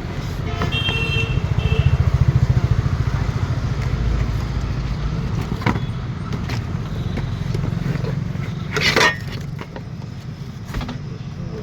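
A steady low engine rumble with a fast even pulse, with a brief rustling burst about nine seconds in.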